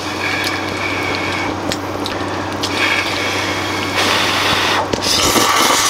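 Wet liquid sounds from hot noodle broth over a steady low hum, with a louder stretch of rushing noise about four seconds in.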